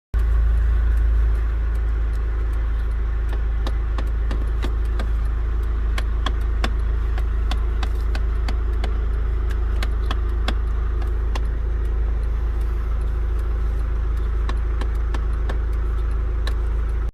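Kia Grand Carnival running with its air conditioning on: a steady low engine hum under sharp, irregular ticking clicks, several a second. This is the tick-tick-tick noise the van makes whenever the air conditioning is switched on.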